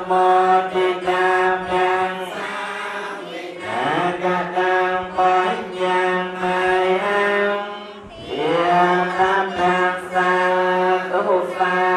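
Buddhist monks chanting together in unison on a steady, held pitch. The chant breaks for a breath about four seconds in and again about eight seconds in.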